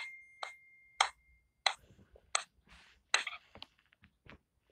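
Toothbrush scrubbing teeth: a quick run of short brushing strokes that thins out after about half a second into scattered scrapes and clicks. A thin steady high beep runs under the first second and a half.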